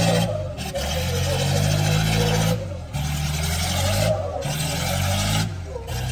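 Farmall tractor engine running hard under load as it pulls a weight in a tractor pull, its note dipping briefly about every second and a half.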